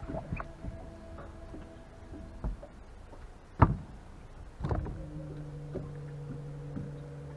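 A single sharp knock about halfway through, like something striking the boat, then a steady low hum with overtones that starts about two-thirds of the way in and keeps going.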